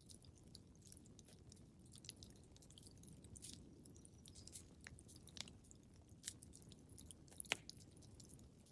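Wood fire crackling in a fireplace: scattered quiet snaps and pops over a low, soft rumble of the flames, with one sharper pop about seven and a half seconds in.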